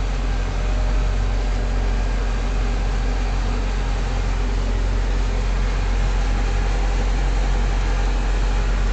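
Caterpillar 316 excavator's diesel engine running steadily.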